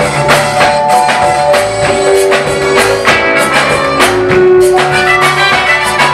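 Gospel band music with a steady beat: bass, drums and held keyboard-like chords.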